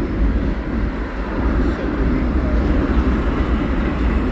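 CN freight train rolling past at close range, a steady low rumble of the train on the rails.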